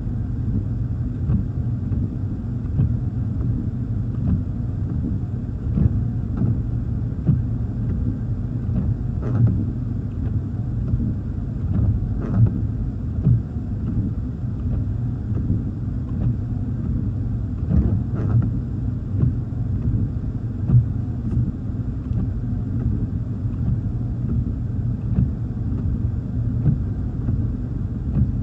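Steady low rumble heard from inside a car sitting out windy rain, with a few short knocks scattered through.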